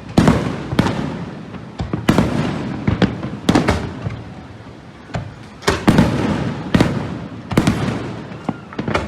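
Aerial fireworks shells bursting in a steady barrage: about a dozen sharp bangs, one or two a second, each trailing off in a rumbling echo.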